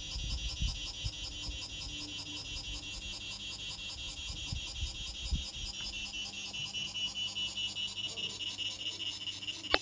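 A steady chorus of chirping insects pulses evenly throughout, with a few soft low thumps in the first half and a short click near the end.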